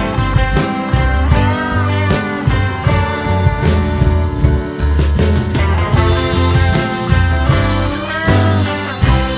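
Instrumental break of a blues-rock song: a lead guitar line with bending notes over bass and drums.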